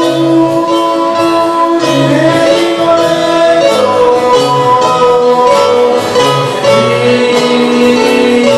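Three nylon-string classical guitars playing a milonga together live, plucked melody over a pulsing bass line.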